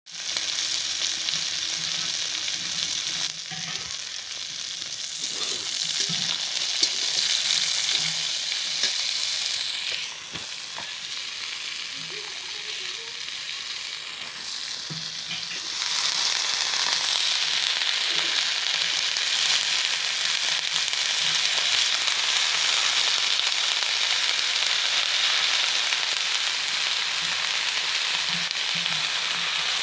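Vegetables sizzling as they fry in hot oil in a steel kadhai, with occasional clinks of the steel spatula against the pan. The sizzle grows louder about halfway through, after shredded cabbage goes into the hot pan.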